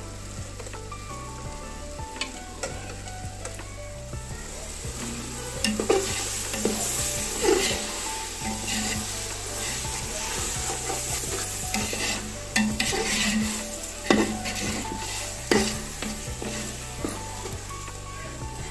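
Onion-tomato masala sizzling in a large aluminium pot while a metal ladle stirs it, scraping and knocking against the pot's sides. The sizzle swells about five seconds in.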